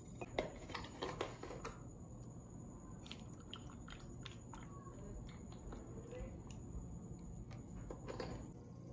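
Quiet kitchen handling sounds while iced coffee is being made. There are sharp clinks of glass and ice in the first two seconds, then soft splashes and small clicks as milk is poured from a carton into a plastic cup, and a few more knocks near the end.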